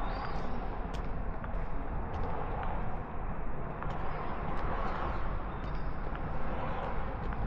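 Footsteps on pavement at walking pace, faint ticks about every half second, over a steady outdoor street hum.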